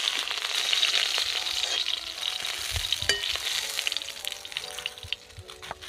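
Pieces of boal (wallago catfish) sizzling in hot mustard oil in a kadai as a spatula lifts them out. The sizzle dies down over the last couple of seconds.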